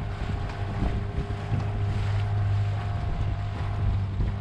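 Small boat's motor running with a steady hum as it moves across choppy water, with wind buffeting the microphone.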